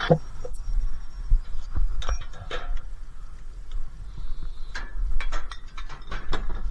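Irregular clinks and knocks of scrap metal pieces being picked through and moved by hand, coming thicker near the end.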